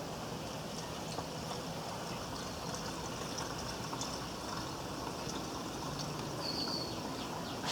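Liquid poured in a steady stream into a Briggs & Stratton Model Y engine as it is filled with gas and water before starting.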